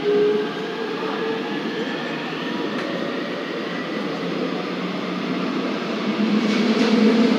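Busan Metro Line 2 subway train running between stations, heard from inside the passenger car: a steady rumble of wheels on rail with a faint running whine, a brief louder tone just after the start, and a louder, deeper hum building from about six seconds in.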